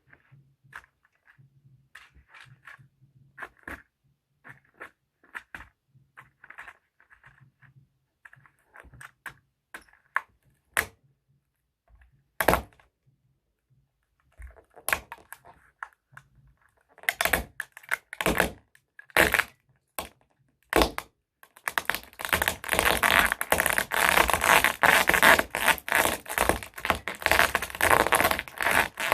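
Toy trucks being crushed: scattered light clicks and knocks, then several loud sharp cracks, and about twenty-two seconds in a dense run of crackling and snapping as the toys break up.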